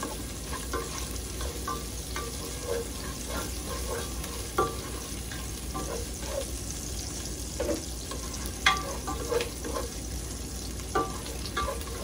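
Garlic, onion and ginger frying in oil in a pot, a steady sizzle under the irregular scrape and clack of a cooking spoon stirring against the pot. Two sharper clacks stand out, near the middle and about three-quarters through.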